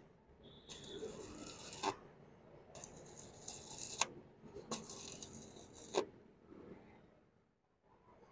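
Stick-welding arc from a Jacpro ARC 200F inverter welder with a 2.5 mm electrode, crackling in three bursts of about a second each. Each burst cuts off sharply as the arc is broken.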